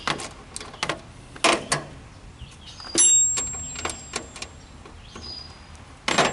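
Hand tools and metal parts clinking and knocking as an old starter solenoid is unbolted: scattered clicks and clunks, with one loud metallic clank about three seconds in that rings on briefly.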